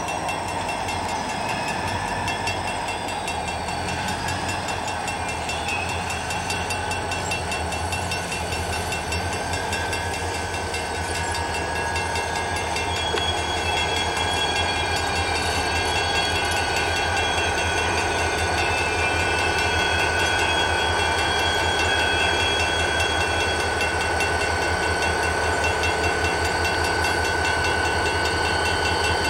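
Diesel locomotives working hard at high throttle, hauling a heavy loaded scrap train slowly up a grade. The engines give a deep steady throb, and a steady whine grows in about halfway through as the lead unit draws closer and louder.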